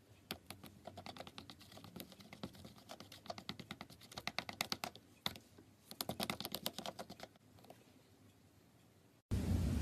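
Slime being pressed and squeezed by hand, giving rapid clusters of small sticky clicks and pops that fade out. Near the end a louder steady low rumble cuts in abruptly.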